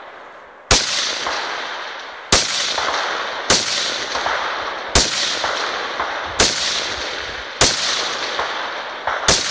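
Semi-automatic rifle fired from the prone position: about eight single shots, spaced a second or so apart, with the last two in quick succession. Each shot cracks sharply and rings out with a long echo that fades before the next. The slow, even pace is deliberate aimed fire at a distant target.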